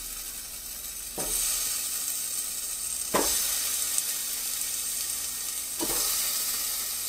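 Raw chicken wings sizzling as they are laid one at a time onto the hot crisper plate of a preheated Ninja air fryer basket. Each piece sets off a fresh burst of sizzling that slowly settles, three times.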